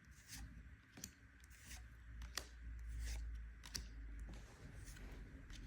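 Faint slides and flicks of Magic: The Gathering trading cards being handled and flipped through, one short swish every half second or so, over a low handling rumble.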